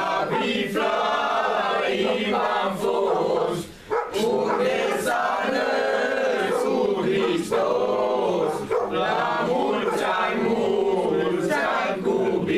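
A group of young men singing a Romanian Christmas carol (colind) together, with long held notes and no instruments.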